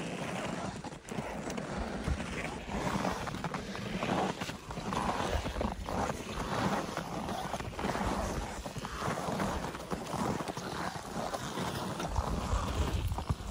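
Wind buffeting the phone's microphone, with the irregular steps of climbers walking in snow; a stronger gust of wind rumble comes near the end.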